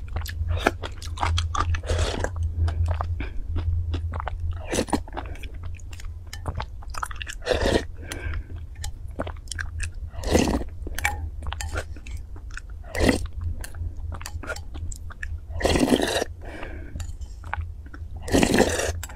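Close-miked mouth sounds of a person eating spoonfuls of soft food: continual wet chewing clicks, with a louder noisy bite or slurp every few seconds as each spoonful goes in.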